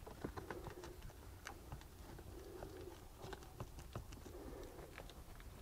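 Faint, irregular small clicks and taps of a 10 mm socket wrench working the nut on a car battery's terminal clamp.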